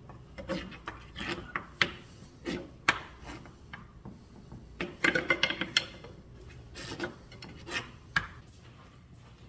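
A utensil scraping and knocking against a pan in irregular strokes while stirring peanut sauce over low heat, with a quick run of scrapes about five seconds in.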